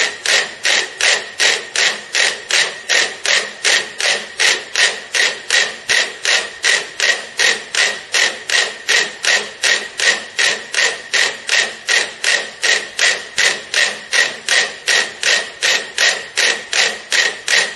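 About thirty small wind-up metronomes ticking together. Their beats merge into one sharp, steady click about three times a second, because their pendulums have synchronized.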